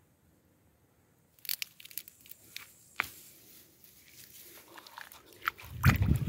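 Crackling, tearing and a few sharp snaps as a carrot is pulled up by its tops from the garden soil. Near the end, loud water sloshing and splashing as the carrot is rinsed by hand in a plastic barrel of water.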